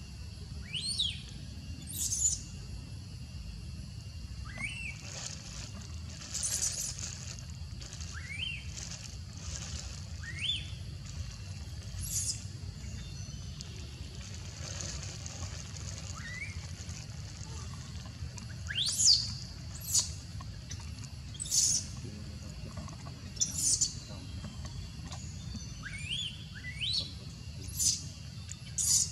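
Baby macaque crying: a string of short, high squeals, each rising in pitch, coming irregularly and loudest from about 19 to 24 seconds in, over a steady low hum.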